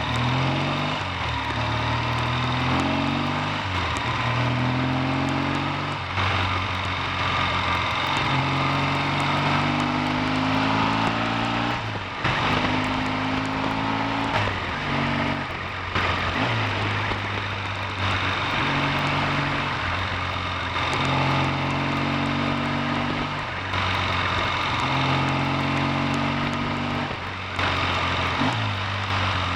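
Triumph T140V's 750 cc parallel-twin engine under way, its revs climbing and then dropping back again and again as it accelerates and changes gear, with brief throttle lifts in between.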